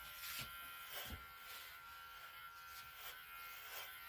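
Electric hair clippers running with a steady, faint buzz, with a few light clicks.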